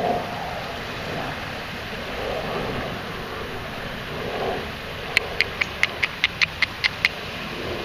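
Duck call blown in a quick run of about ten short, sharp notes, roughly five a second, over a steady background hiss.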